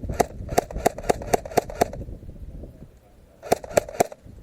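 Airsoft gun firing rapid single shots: about eight sharp cracks at roughly four a second, then a pause and three more near the end.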